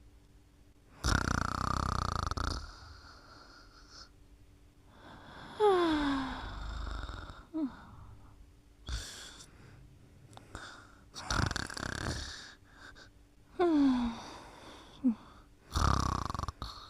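A sleeper snoring: four rasping snores, one about every four to five seconds, with short whistling squeaks that fall in pitch in between.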